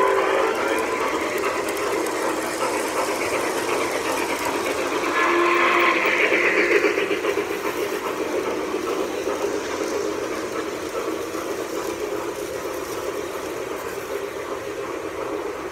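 Lionel O-scale model trains running on three-rail track: the steady rolling rattle of wheels and motors as the Blue Comet's passenger cars pass close by, getting quieter in the second half as they move off. A short pitched tone sounds about five seconds in.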